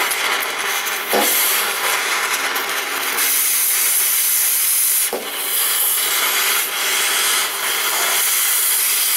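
Cutting torch hissing steadily as it cuts the rusted exhaust flange nuts, growing harsher about three seconds in as it throws sparks, with two brief pops.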